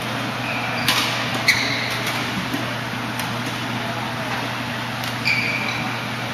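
Court shoes squeaking briefly on a badminton court mat, three short high squeaks, with one sharp tap about a second in, over the steady hum and hiss of a large sports hall.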